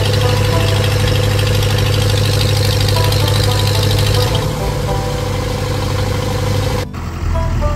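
Engine of a 1966 Case 430 Construction King loader tractor running steadily while the loader bucket is raised. Its note shifts slightly about four seconds in, and the sound cuts off suddenly about seven seconds in.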